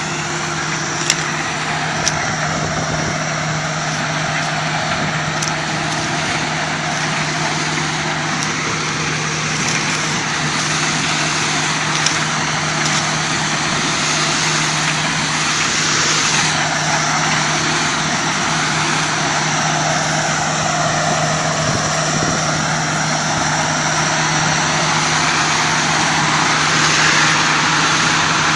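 Corn harvesting machine running steadily: an engine's constant hum under a wide, busy mechanical noise, with a few sharp clicks near the start.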